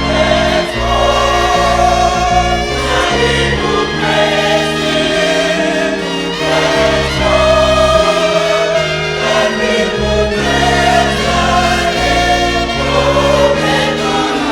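Gospel music with a choir singing over bass and keyboard accompaniment.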